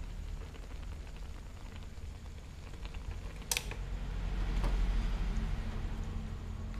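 Egg noodles cooking in a pan over a stove burner: a steady low burner rumble under light crackling and the clicks and scrapes of a utensil stirring, with one sharp click a little past halfway and a louder stretch of crackle after it.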